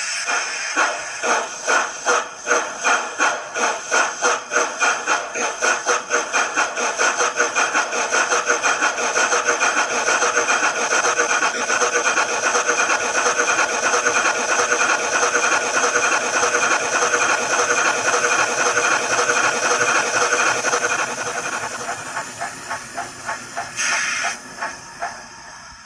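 Hornby model A4 steam locomotive's Digitrains sound decoder playing steam exhaust chuffs. They start at about two beats a second and quicken until they run together, then slow again near the end to a few spaced chuffs and a short burst of hiss.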